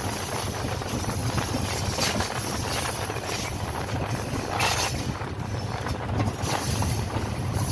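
Pakistan Railways diesel locomotive running slowly, heard from on board: a steady low engine rumble under rail and wind noise, with a few brief rushes of noise about two seconds in, halfway through and near the end.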